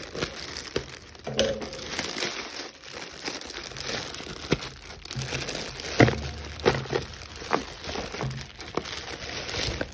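A clear plastic bag crinkling steadily as it is handled and pulled open around a boxful of jewellery, with a few sharp knocks, the loudest about six seconds in.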